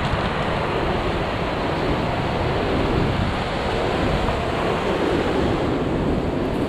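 Rough sea surf washing against shore rocks, a steady rush of water, with wind buffeting the microphone.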